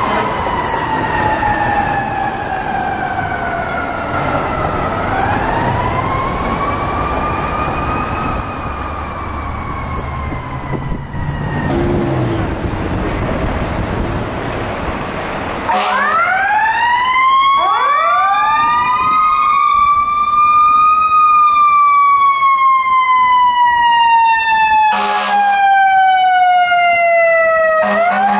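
Fire apparatus sirens in wail mode, sweeping slowly down and up over the rumble of the truck engine. Partway through, the sound jumps louder and several sirens wind up one after another into a slow wail, with a short horn blast near the end.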